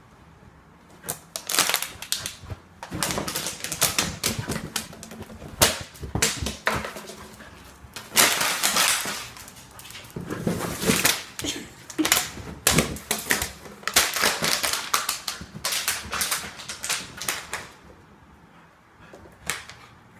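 Empty plastic water bottle crackling and crunching as a husky chews and carries it in its mouth, in irregular bursts of clicks with short pauses, going quieter near the end.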